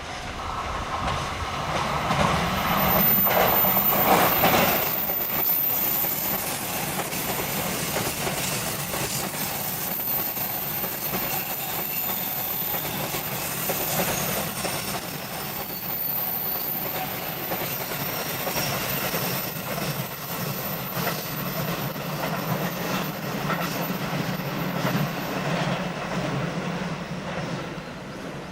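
A train passing close by on the track. Its wheels clack over the rail joints. It is loudest about four seconds in, then runs steadily for a long time before fading near the end.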